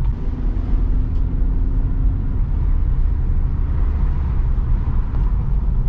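9th-gen Honda Civic driving, heard from inside the cabin: a steady, deep road and tyre rumble, with a faint steady tone for about the first two seconds.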